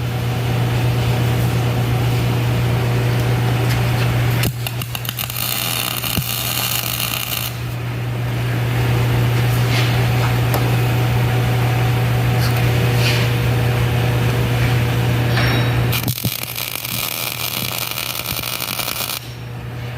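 MIG welding on steel frames in a jig: a steady crackling arc sound over a constant low hum, the crackle changing character about four seconds in and again near the end as welds start and stop.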